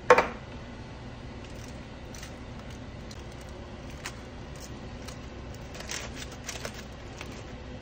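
A single sharp metallic clack as a knife prys up the lid of a tin can, then faint scrapes and clinks of a metal spoon scooping thick refried beans out of the can into a foil-lined slow cooker, over a steady low hum.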